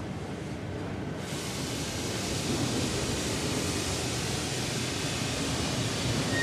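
Steady industrial machinery noise from a melamine paper impregnation and lamination line: a low rumble with a broad hiss that comes up about a second in and holds.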